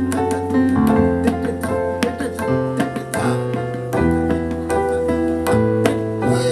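Instrumental music: a keyboard-like instrument plays a run of quick notes over held bass notes that change every second or two.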